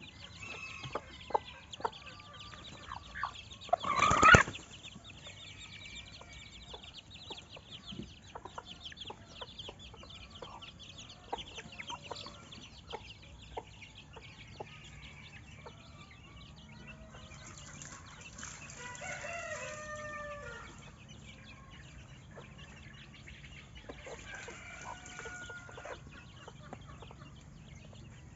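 Domestic chickens clucking and calling, with a loud short squawk about four seconds in and a longer drawn-out call, likely a rooster's crow, about two-thirds of the way through.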